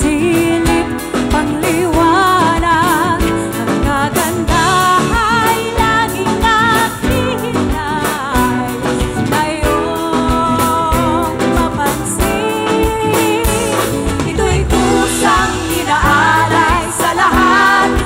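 Live band music: a woman singing lead over acoustic guitar, keyboard and a drum kit keeping a steady beat.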